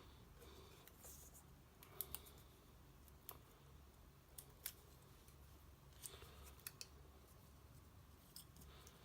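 Faint, scattered clicks and taps of small cut-out paper pieces being handled and placed on a card, over a quiet room background.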